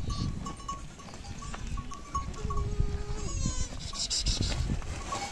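Goats bleating, with a small livestock bell clinking again and again.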